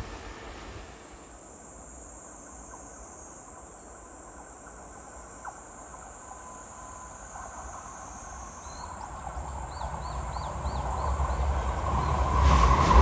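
Insects chirping steadily in rural quiet, with a quick run of about seven short chirps about nine seconds in. From then on a vehicle approaches, its rumble growing steadily louder until it is loud near the end.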